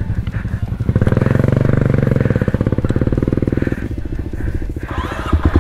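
Yamaha WR155R trail bike's single-cylinder engine running under throttle. The revs rise about a second in and hold for a few seconds, ease off, then pick up again near the end.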